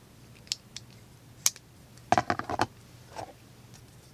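Light clicks from handling folding knives: a few single clicks, then a quick rattle of about six clicks about two seconds in and a softer one after.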